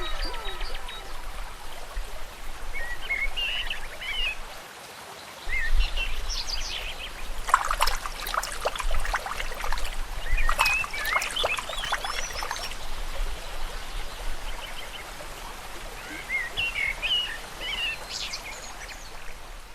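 Small birds chirping in scattered short bursts over a steady hiss of outdoor background noise, with the chirping busiest in the middle stretch.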